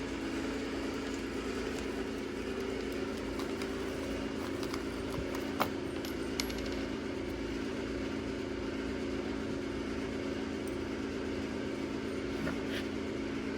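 Race car engine idling with a steady, unchanging hum, and two sharp clicks a little past the middle.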